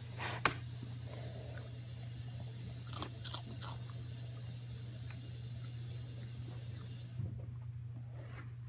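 A puppy chewing and crunching food: scattered crisp crunches and clicks, the sharpest about half a second in and a cluster about three seconds in. A steady low hum runs underneath.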